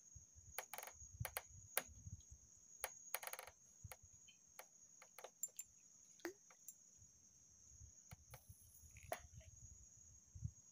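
Quiet ambience with a steady high-pitched insect drone, broken by scattered small clicks and knocks and a couple of brief rustles.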